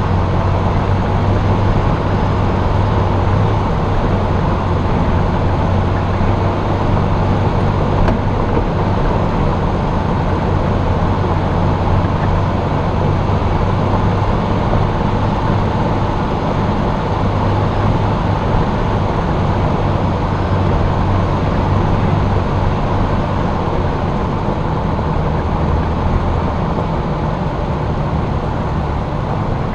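Jeep engine running steadily with tyre and wind noise, heard from the hood as the vehicle drives up a mountain road; the low engine hum dips slightly near the end.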